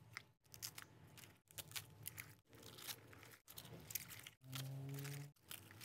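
Faint crinkling and rustling of raw cabbage leaves being handled and pushed down into a bowl of water. A brief low hum lasts about a second near the end.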